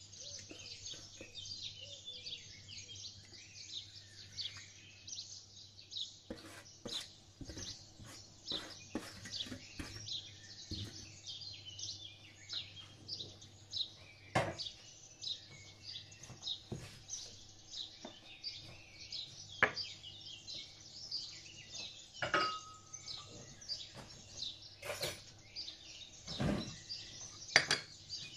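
Many small birds chirping in a continuous chatter, with a scattering of sharp clinks from a metal tray, ceramic bowl and spoon being handled; the loudest clinks come about two-thirds of the way through and near the end.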